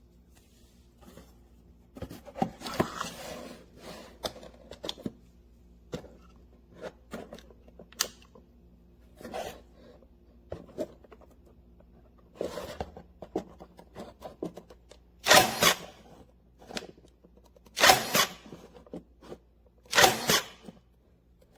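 A product and its packaging being handled: irregular clicks, taps and rustling, with three louder rustling bursts of about half a second each in the last third.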